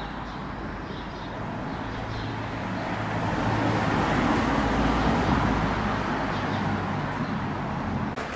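A motor vehicle passing on the street: engine hum and tyre noise build to their loudest about halfway through, then fade.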